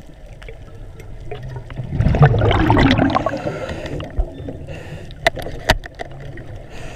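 Underwater water noise on a diver's camera: a low steady rumble, then a loud gurgling rush of water and bubbles about two seconds in lasting about a second. Two sharp clicks follow near the end.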